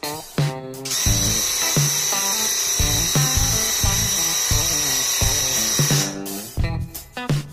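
Graco UltraMax airless paint sprayer with a 308 tip spraying: a steady high hiss with a thin whine that starts about a second in and cuts off about five seconds later. Guitar background music plays throughout.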